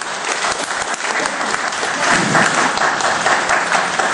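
Audience applauding, a roomful of hands clapping, growing a little louder about two seconds in.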